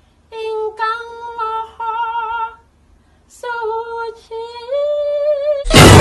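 A woman's voice sings wordless held notes with vibrato in two phrases, with a short pause between them; the second phrase steps up in pitch. Just before the end, a loud burst of music cuts in abruptly.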